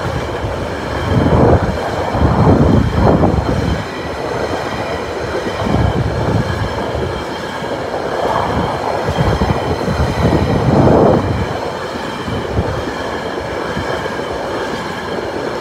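Empty container flat wagons of a freight train rolling past, with the steady rumble and clatter of steel wheels on the rails. It swells louder about one to three seconds in and again around ten seconds in as bogies pass.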